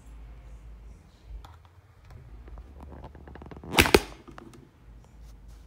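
Handling noise from the recording camera being grabbed and moved: scattered light clicks, then two sharp knocks a split second apart about four seconds in.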